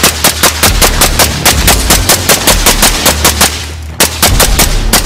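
Suppressed Mark 18 carbine firing a long string of rapid shots, about eight a second. The shots pause briefly about three and a half seconds in, then start again.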